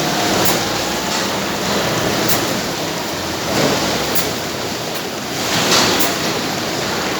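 Paper edge board production machine running with a steady mechanical rush. A light tick repeats about every two seconds, with a brief louder swell about three and a half seconds in and again near six seconds.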